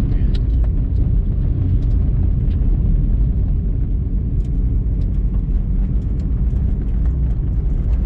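Car driving on a dusty dirt road, heard from inside the cabin: a steady, loud low rumble of engine and tyres, with scattered faint clicks.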